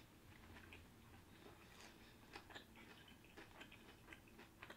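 Faint chewing with scattered soft mouth clicks as a deep-fried salmon sushi roll is eaten.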